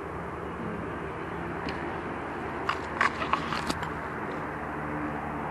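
Steady low outdoor rumble with a faint hum. About halfway through comes a quick, uneven run of about six sharp clicks within a second.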